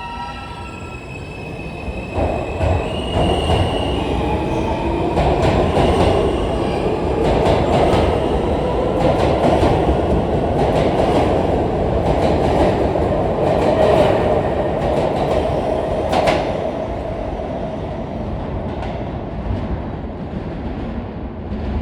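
R160 subway train pulling out of the station. Its traction motors whine, rising in pitch over the first few seconds, under loud rumbling and rapid wheel clicks over the rail joints. The noise fades gradually over the last few seconds as the train moves away.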